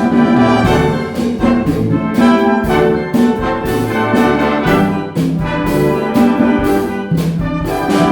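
Concert band playing a Latin-flavoured piece, brass to the fore with trumpets and trombones over a rhythmic percussion pulse.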